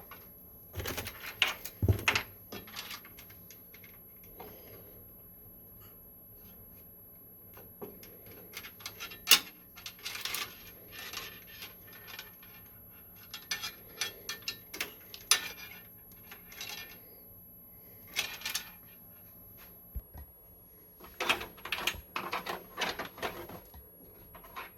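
Small hard PC parts and the case being handled by hand: irregular clicks, taps and light clatters in several bursts, with one sharper knock about nine seconds in.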